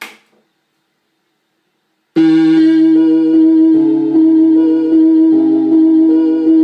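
Vintage Orla Carousel electronic keyboard playing held chords in steady, organ-like tones over a sustained note and a changing bass line. The playing starts about two seconds in, after a brief click.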